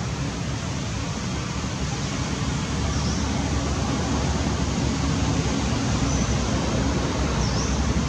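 Steady low rumble with a hiss over it: outdoor background noise, slowly getting louder. A few faint, brief high chirps come through near the middle and toward the end.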